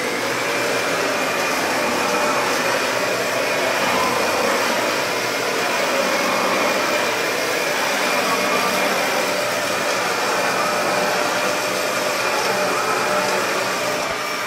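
Dyson DC65 Animal upright vacuum cleaner switched on and run across carpet: a loud, steady motor and airflow noise with a high whine.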